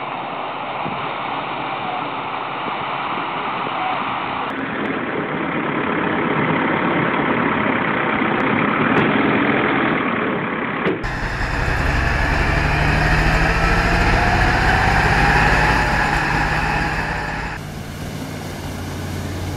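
Heavy vehicle engines running under load in several cut-together clips. In the later clips a steady low engine drone carries a slowly rising whine.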